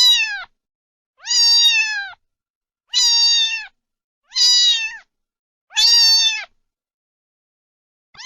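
A cat meowing over and over: about five even, high-pitched meows roughly a second and a half apart, each dropping in pitch at its end.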